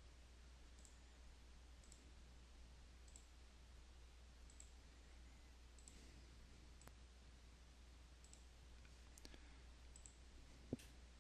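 Faint computer mouse clicks, about one a second, with a slightly louder click near the end, over near-silent room tone with a low hum: holes being selected one by one in the CAM software.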